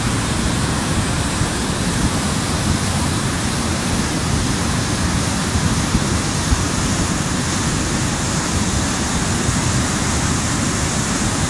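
Mountain torrent in flood: fast, muddy floodwater rushing and churning over boulders, a loud, steady rush of water without a break.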